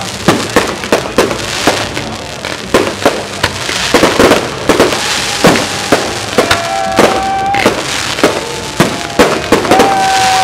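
Fireworks display: a rapid run of bangs from bursting shells, several a second, over continuous crackling. A steady whistle-like tone is held twice in the second half.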